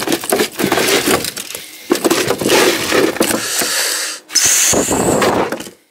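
Rustling, scraping and knocking as a large northern pike is handled in a knotless landing net on the floor of a boat, with a brief high hiss about four seconds in.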